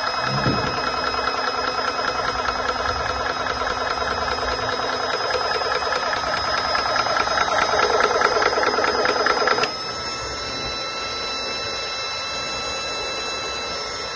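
Portable PCP high-pressure air compressor running: a fast, even piston chatter over a steady high whine. About ten seconds in the chatter stops suddenly and the sound drops quieter, leaving only the steady whine.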